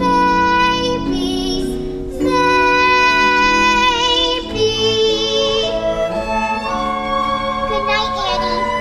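A girl's voice singing the close of a musical-theatre ballad over instrumental accompaniment, holding long notes with a wide vibrato.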